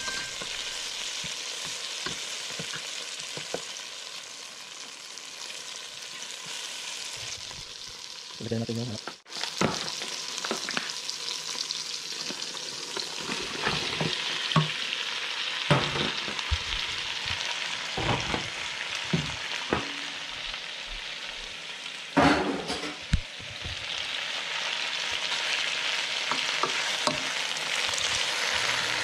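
Chicken pieces sizzling as they fry in a pot, with a spoon knocking and scraping against the pot as they are stirred. The sizzle grows louder from about halfway through, as more chicken is tipped in from a foil tray.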